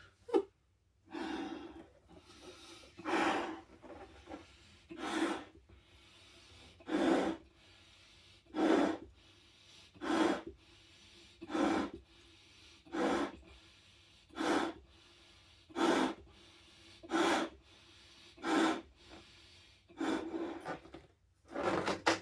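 A latex balloon being blown up by mouth: about fourteen short, even puffs of breath into the neck, roughly one every second and a half. The balloon is an old, yellowed, oxidized one being tested to see whether it still holds air. There is a short click right at the start.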